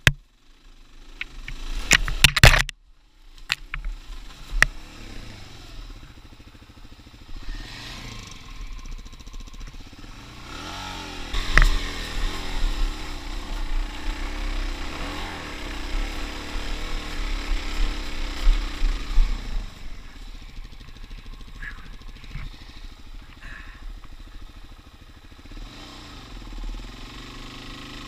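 Suzuki DR-Z400 dual-sport motorcycle's single-cylinder engine running as it rides a dirt trail, its pitch rising and falling with the throttle, under wind hiss. Several sharp knocks sound in the first few seconds.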